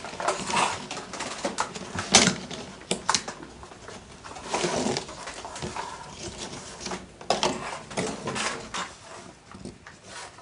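Thin chestnut laths being woven into a basket by hand: irregular creaks, rustles and scrapes of the wooden strips as they are bent and pushed through the uprights, with a sharp knock about two seconds in.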